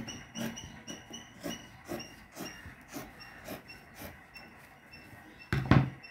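Fabric shears snipping through white cotton cloth, about two snips a second, each with a short metallic click and squeak from the blades. A louder knock comes near the end.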